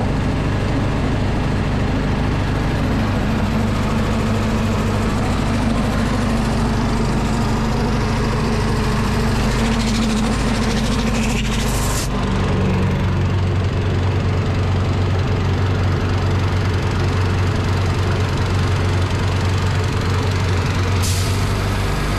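Predator 212 single-cylinder four-stroke engine running steadily while belt-driving an air compressor. About twelve seconds in, a rising hiss of air cuts off and the engine note changes as the compressor's load shifts; a brief hiss of air comes again near the end.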